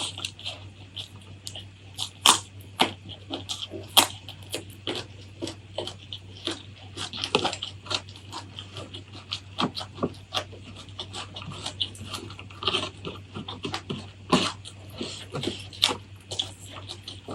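Close-miked eating sounds: irregular crunches and wet mouth smacks of chewing, several a second, over a faint steady low hum.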